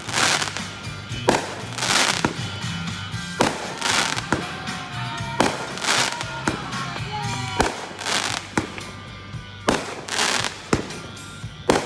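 Consumer fireworks cakes and aerial mortar shells going off in quick succession, a dozen or more sharp bangs at irregular intervals, often one or two a second. A few short gliding whistle tones sound in the middle.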